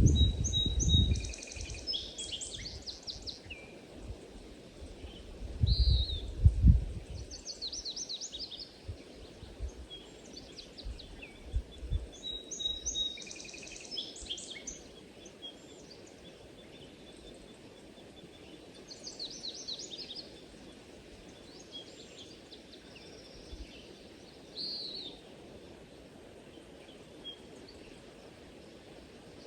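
Songbirds singing, repeated short high trilled phrases coming every few seconds over a faint steady background hiss. A few low rumbles come near the start, at about six seconds and at about twelve seconds.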